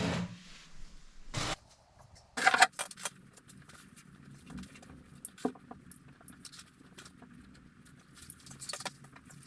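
Scattered light clicks and clinks of ceramic subway tiles and tiling tools being handled and set, with a louder cluster of knocks about two and a half seconds in.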